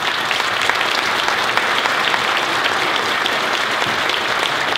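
Audience applauding: many people clapping at once, starting suddenly and holding steady and loud.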